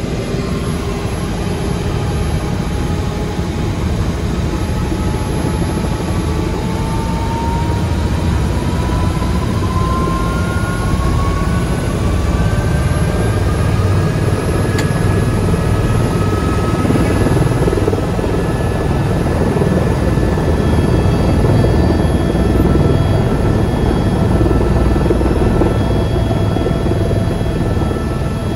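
Turbine tour helicopter's engine and rotor running loud inside the cabin. A whine rises in pitch over several seconds, about a quarter of the way in, then holds steady, as the engine winds up while the helicopter sits on the ground.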